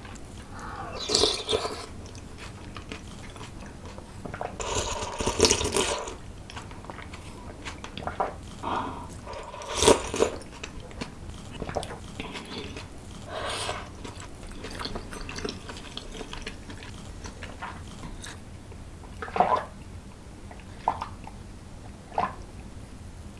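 Close-miked eating: a person chewing and biting food, in separate bursts a few seconds apart, the longest lasting about a second and a half.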